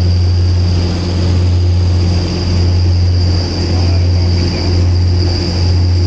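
A ferry's engines droning steadily: a loud, even low hum with a faint, steady high whine above it.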